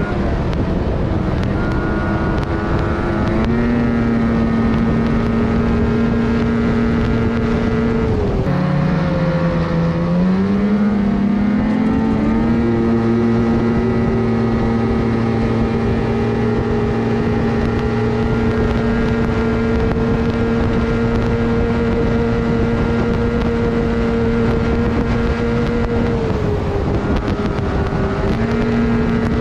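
Ski-Doo MXZ 800 snowmobile's two-stroke twin engine running at cruising speed. Its pitch drops as the throttle is eased about eight seconds in, climbs back over the next few seconds, holds steady, and dips briefly again near the end.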